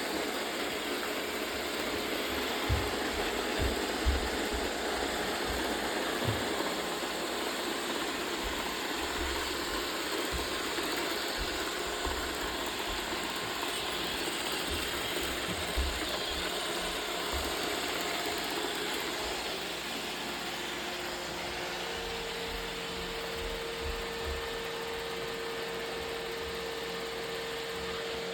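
Roomba robot vacuum running, with a steady mechanical whir and rattle from its motor and brushes. Several knocks come in the first six seconds and one more near the middle, and a steady hum tone joins about three-quarters of the way through.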